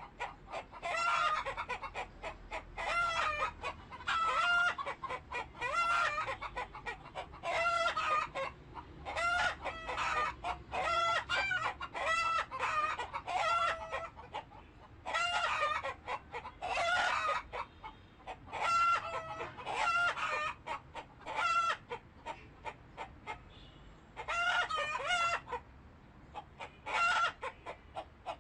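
Chickens clucking and calling, many calls in quick bursts with short pauses between them, including some longer drawn-out calls.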